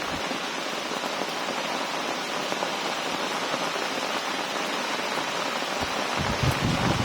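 Heavy rain falling in a steady hiss. In the last second, gusts of wind start to buffet the microphone.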